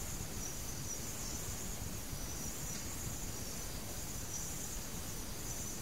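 Crickets chirring steadily at a high pitch over a constant background hiss.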